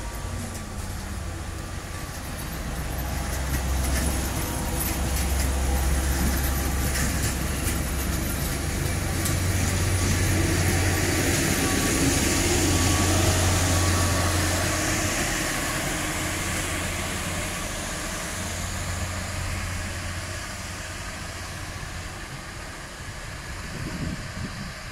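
Plasser & Theurer multiple tie tamper (MTT) track maintenance machine moving off under its own diesel power: a steady low engine drone with wheels rolling on the rails. It grows louder as the machine passes close, with some clicking in the first few seconds, then slowly fades as it moves away.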